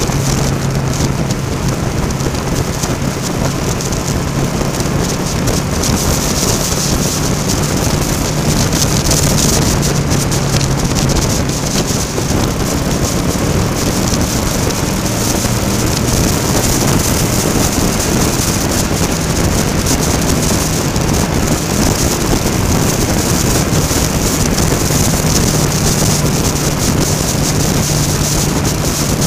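Motorcycle engine running steadily at cruising speed, under heavy wind rush over the microphone and the hiss of rain and spray on a wet road.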